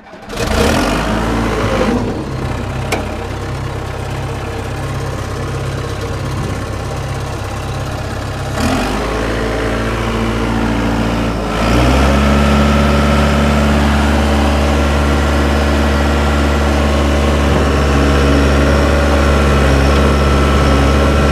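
Dresser TD8G crawler dozer's diesel engine starting and then running steadily. The engine speed is raised in two steps, about 9 and 12 seconds in, after which it runs louder and holds steady at the higher speed.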